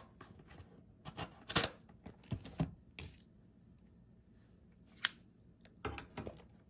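Scattered light clicks and rustles of small objects being handled on a tabletop, with one sharper click about five seconds in.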